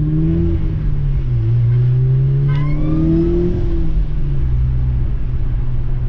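Audi S3 8P's turbocharged 2.0-litre four-cylinder engine heard from inside the cabin on the move. The revs rise, dip about a second in, climb again, then level off. It runs smoothly, its misfire cured by new spark plugs and coil packs.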